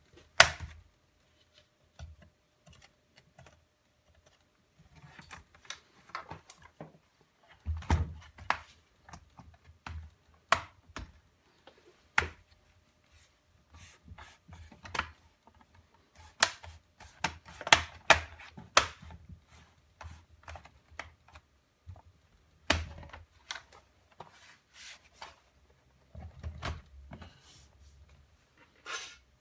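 Irregular sharp plastic clicks and taps on an Acer laptop, a few with a dull thud, spaced unevenly about half a second to a second apart.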